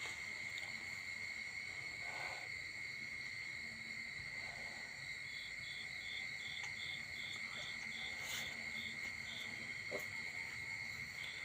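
A steady insect chorus, continuous high trilling like crickets. About a third of the way in comes a run of about a dozen short, evenly spaced chirps, roughly three a second.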